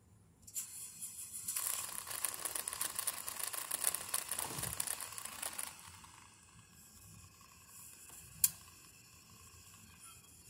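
Thomas C2 school bus engine being cranked and started: a loud, noisy rush lasting about five seconds, after which it falls back to a faint idle. One sharp click comes near the end.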